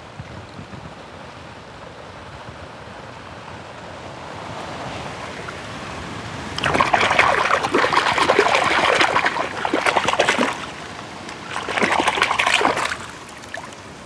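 A hand splashing and swishing in shallow muddy water: a soft hiss at first, then a burst of splashing about seven seconds in that lasts some four seconds, and a shorter second bout near the end.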